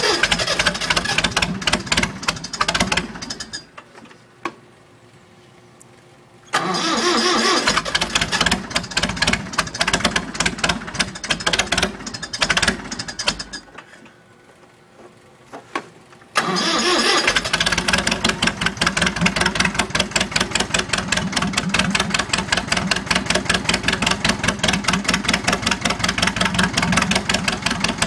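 International Harvester 584 tractor's diesel engine being cold-started. The starter cranks it in three bursts: the first two stop after a few seconds each. On the third, about sixteen seconds in, the engine catches and runs steadily with an even beat.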